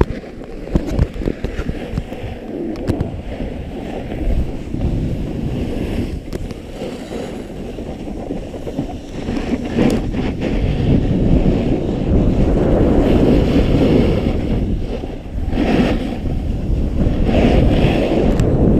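Wind buffeting the microphone while a snowboard slides and scrapes over packed snow on a downhill run, growing louder about halfway through. There are a few sharp clicks in the first few seconds.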